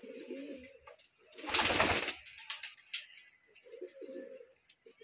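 Domestic pigeons cooing, with a loud rustling burst of noise lasting over half a second about a second and a half in, and a few sharp clicks after it.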